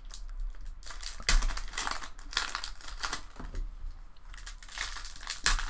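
Foil wrapper of a 2020/21 Upper Deck Skybox Metal Universe hockey card pack being torn open and crinkled as the cards are pulled out: an irregular run of crackles and rustles with a few sharper snaps.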